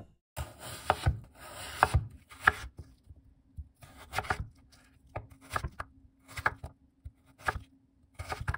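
Chef's knife cutting through raw daikon radish and knocking on a wooden cutting board as the radish is diced into cubes. First come long slicing cuts, then short chops about once a second.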